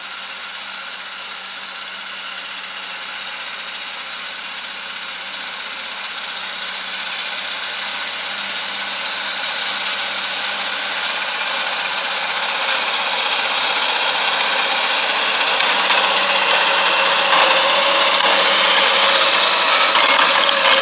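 Diesel tractor engine running under load while pulling a Bomford Dyna-Drive cultivator through soil, growing steadily louder as it approaches, with some clattering in the last few seconds.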